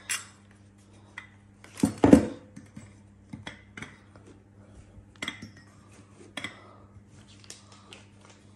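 New cast-alloy water pump for a Valiant VH Charger being handled and set down on a kitchen benchtop: one louder knock about two seconds in, then scattered light metal clinks and knocks. A faint steady low hum lies underneath.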